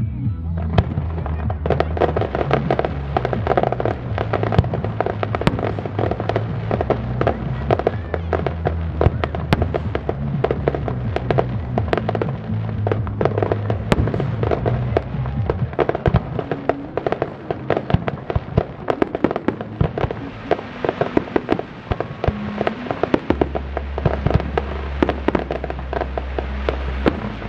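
Starmine fireworks barrage: a rapid, continuous string of shell bursts and crackling. Music with held bass notes plays underneath.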